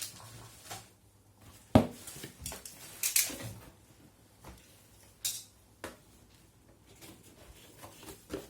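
Packaging being handled during an unboxing: scattered knocks, rustles and light clatter, with one sharp knock a little under two seconds in and short rustling bursts about three and five seconds in.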